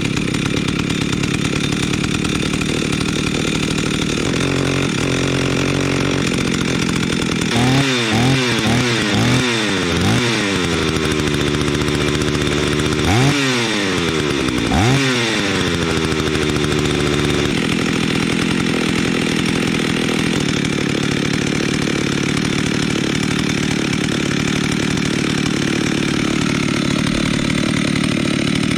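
Husqvarna 61 two-stroke chainsaw running just after a cold start, warming up. It revs up and drops back several times in quick succession about eight seconds in, twice more a few seconds later, then settles into a steady idle.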